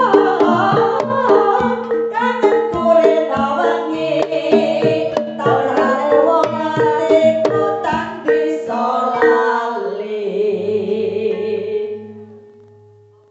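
Javanese jaranan accompaniment: drums and tuned percussion struck in a quick rhythm under singing. The music thins to a held tone and dies away about twelve seconds in.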